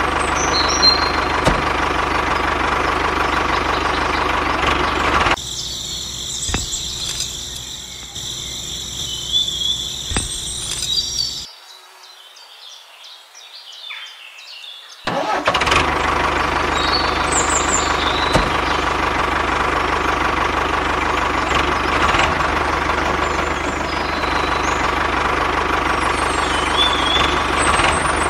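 A steady engine-like running sound with a low hum. About five seconds in it gives way to a thinner, higher hiss, then drops away almost entirely for a few seconds before the running sound returns about halfway through and carries on steadily.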